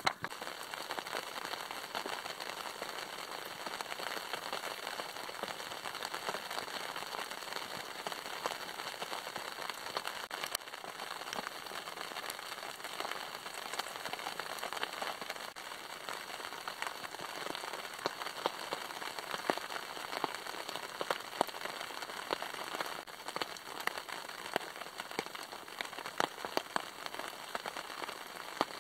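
Rain pattering on a tarp overhead: a steady patter of many small drops.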